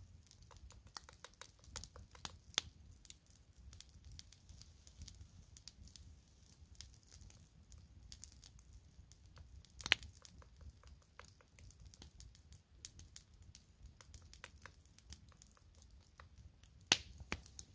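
Wood campfire crackling: scattered small pops and snaps, with a couple of louder ones about ten seconds in and near the end.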